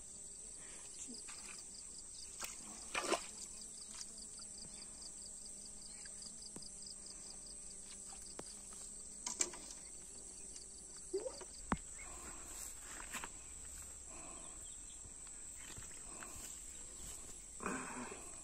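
Insects in a wet field: a steady high-pitched drone, with a rhythmic chirping over the first half. A few scattered knocks and soft handling sounds come through, and a short low call or grunt sounds near the end.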